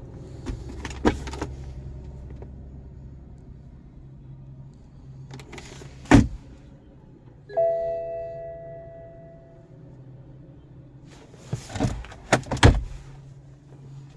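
A few sharp knocks and clicks of things being handled, with one chime, several tones together, sounding about seven and a half seconds in and fading over about two seconds; a cluster of knocks near the end is the loudest.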